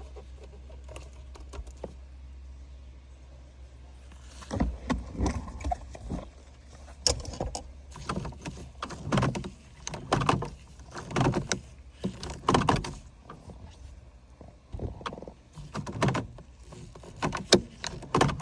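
A steady low hum, then from about four seconds in a run of irregular knocks, clicks and rattles, like parts being handled.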